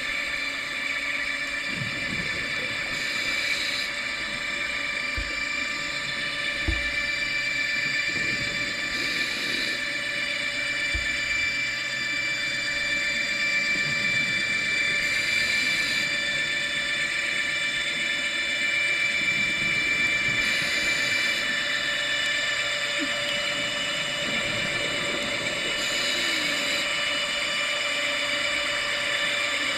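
Underwater, the electric thrusters of the Atlantis tourist submarine give a steady high whine of several pitches that holds without break. Short hissing bursts of scuba exhaust bubbles from the diver's regulator come about every six seconds.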